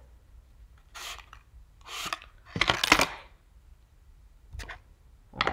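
Hands opening a plastic makeup palette and its packaging: a few short rustles and clicks, the loudest about halfway through.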